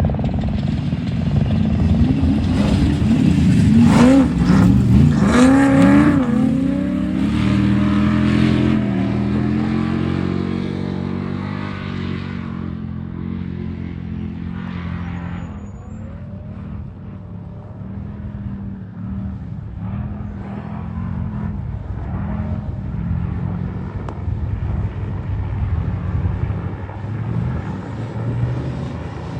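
Off-road race vehicle engine revving hard and passing close, its pitch swinging up and down over the first several seconds. It then settles to a steadier note and fades away, with engine sound building slightly again near the end.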